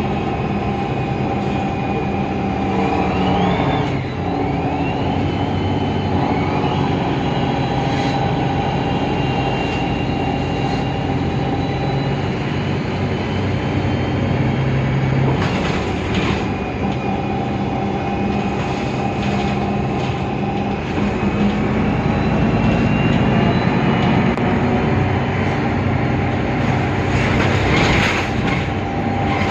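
Mercedes-Benz Citaro city bus's OM 906 hLA diesel engine and Voith DIWA automatic gearbox running under way, with a high whine that rises in pitch a few times. The engine note breaks and picks up again about four seconds in and again about halfway through, as at gear changes.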